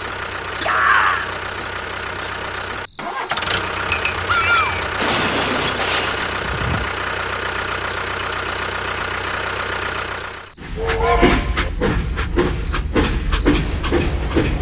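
A vehicle engine running steadily, with abrupt changes about three seconds in and again near ten and a half seconds, after which it turns louder and deeper with a regular pulsing beat.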